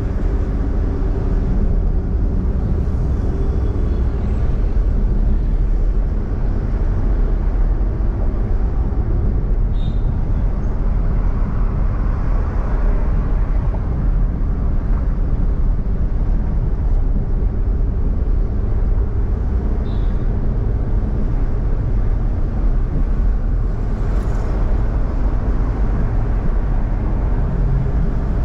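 Steady low rumble of a car driving: engine, tyre and wind noise.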